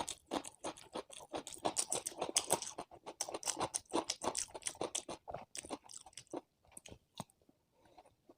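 Close-miked eating: rapid chewing and crunching of a mouthful of food, dense and steady, thinning out to a few softer chews about six and a half seconds in.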